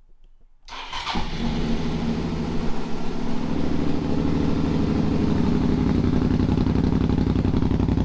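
A 2007 Suzuki V-Strom 650's fuel-injected, liquid-cooled V-twin is started and catches about a second in, then idles steadily, sounding pretty good.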